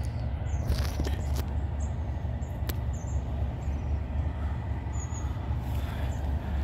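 Class 37 diesel locomotive's English Electric V12 engine running with a steady low rumble as it approaches slowly, with a few short high chirps over it.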